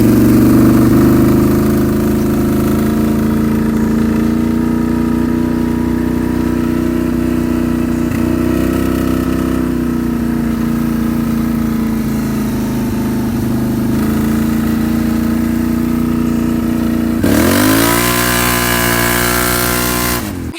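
Vehicle engine running at a steady speed, then revving up with a rising pitch about seventeen seconds in, and cutting off abruptly at the end.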